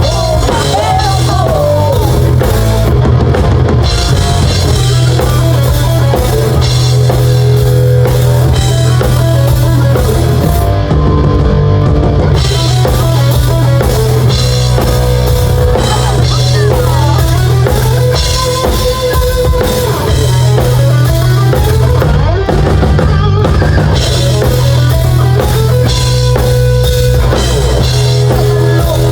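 Live band playing loud amplified rock-style music: a drum kit beat with bass drum and snare, under a melody line that bends up and down.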